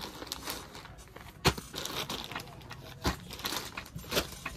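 Sarees in clear plastic packaging crinkling and rustling as the packets are handled and laid down. Three sharp slaps of a packet landing, the loudest about a third of the way in.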